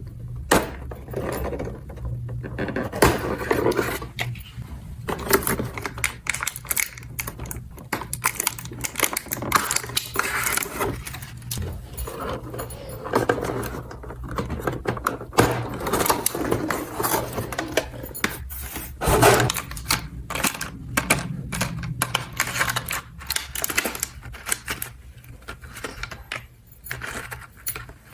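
Small plastic toy pieces being handled: an irregular stream of clicks, taps and light rattles, over a steady low hum that fades out near the end.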